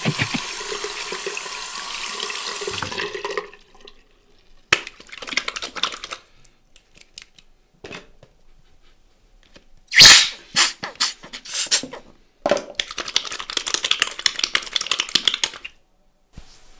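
Water at a bathroom sink: the tap running for a few seconds, then scattered splashes and drips as someone washes, with one loud splash about ten seconds in. The tap runs again for about three seconds near the end.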